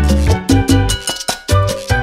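Background music with a steady beat, bass line and pitched instrument notes.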